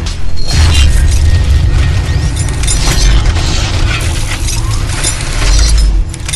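Trailer-style sound effects for a logo reveal: a dense wash of crackling, breaking-glass-like effects over a deep low rumble, mixed with music. The low rumble swells near the end and stops suddenly about six seconds in.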